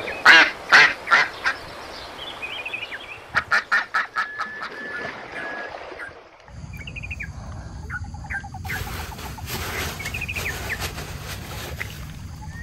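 Ducks quacking: several loud separate quacks at the start, then a quick run of quacks about three and a half seconds in.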